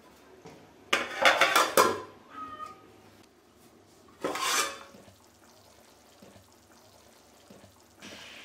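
Aluminium pot lid clattering onto a steel cooking pot: a burst of metal knocks and rattles about a second in, with a brief ringing after, then a second shorter metal clatter a few seconds later as the lid is moved again.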